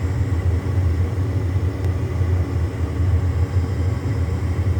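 Gas furnace blower fan running with a steady low rumble and a faint high whine; the burners have not lit.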